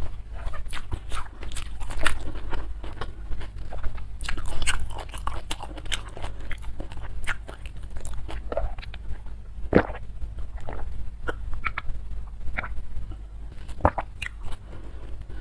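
Close-miked chewing and crunching of food in a person's mouth: a long run of small, irregular crunches and wet clicks.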